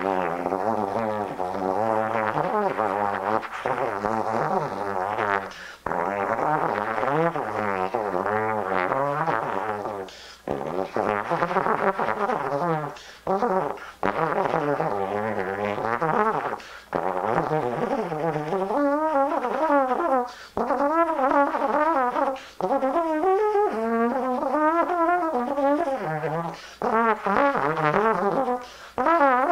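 Solo trombone playing a free microtonal improvisation in phrases broken by short pauses. The notes waver and slide in pitch, and the wobbles grow wider in the second half.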